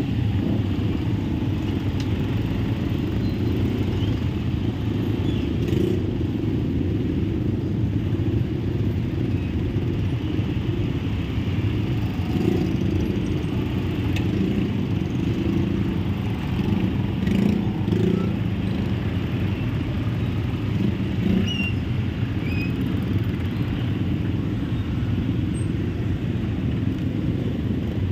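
Many motorcycle engines idling and creeping along together in a dense traffic jam, a steady low engine rumble.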